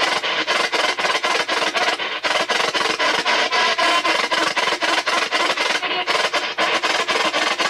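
P-SB7 spirit box sweeping the AM radio band: a continuous rush of static chopped into short fragments many times a second as the tuner jumps from station to station.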